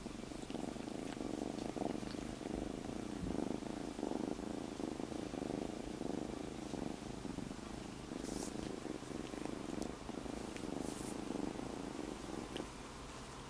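Young black-and-white kitten purring steadily, close to the microphone, with a couple of brief rustles of movement about two-thirds of the way through.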